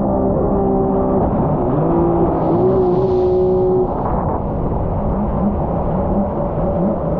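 Jet ski engine running hard, holding a steady note, then its pitch wavering up and down in the last few seconds.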